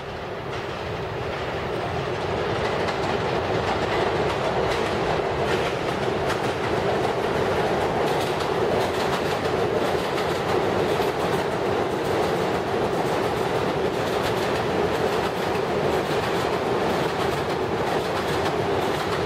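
New York City Subway train of converted R142A cars with an R188 car running past on elevated steel track: a steady rumble with the clatter of wheels over rail joints. It rises over the first couple of seconds, then holds steady.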